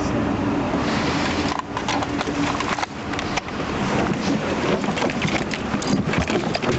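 Rustling with an irregular clatter of knocks and clicks close to the microphone, busiest from about a second and a half in.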